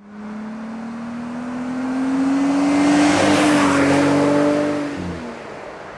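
Jeep Gladiator's V6 engine through a Magnaflow Street Series cat-back dual-tip exhaust, pulling under throttle: the exhaust note climbs steadily and grows loudest about three seconds in, then drops in pitch and fades about five seconds in as the throttle comes off.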